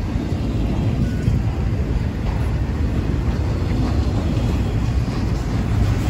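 Freight train rolling past, a steady low rumble of wheels and cars.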